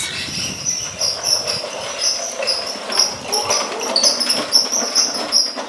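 High-pitched chirping: short notes repeating about three to four times a second, unbroken.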